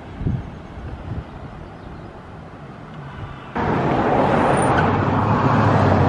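Outdoor roadside ambience with low rumble, then a much louder stretch of road traffic noise that starts abruptly about three and a half seconds in.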